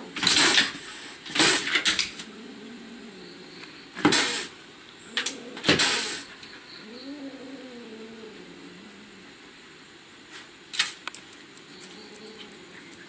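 A cat hisses and spits at a dog in four sharp, loud bursts, a defensive threat. Between them comes a low, wavering yowl lasting a couple of seconds, and there are a few sharp taps near the end.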